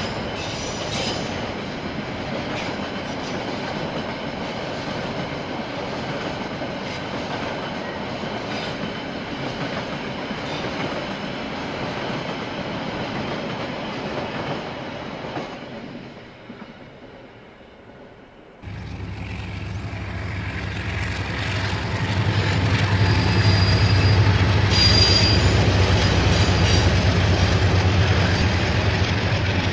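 KiwiRail trains passing on the line: rail wagons rolling by with rhythmic wheel clicks over the rail joints. After a sudden jump about 19 s in, a diesel locomotive's steady engine hum builds and is loudest near the end, with brief high wheel squeals.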